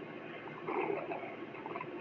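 Cartoon stomach rumble sound effect: small wet gurgles and squelches over a steady background, with the strongest gurgle about two-thirds of a second in.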